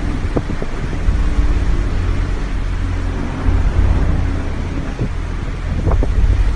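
Storm wind at sea buffeting the microphone: a heavy, steady rumble with the rush of wind and breaking waves, and a couple of brief knocks near the end.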